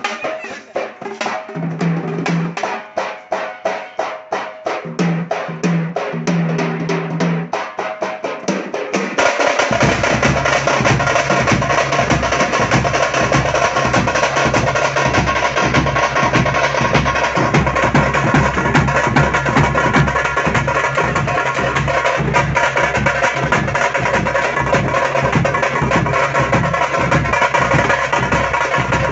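Fast drumming on tamte frame drums, sparse strokes at first, then joined about nine seconds in by a dense, loud full ensemble with heavy bass.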